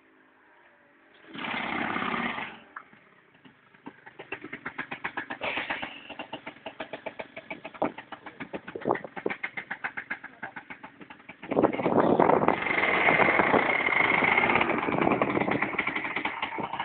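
Gilera Ice 50cc two-stroke scooter engine idling with a fast, uneven putter, then revved up hard about eleven seconds in and held at high revs. A brief rush of noise comes about a second and a half in.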